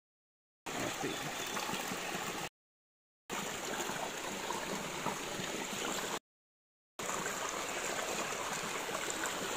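Shallow creek water running and gurgling steadily over rocks. The sound cuts out completely three times, each time for under a second.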